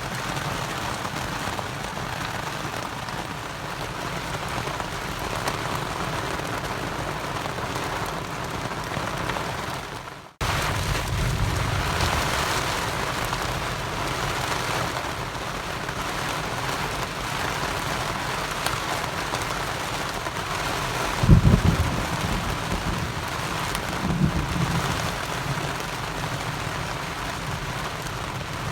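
Heavy rain falling steadily through a thunderstorm. A low rumble of thunder comes about 21 seconds in, the loudest moment, and a shorter one follows near 24 seconds.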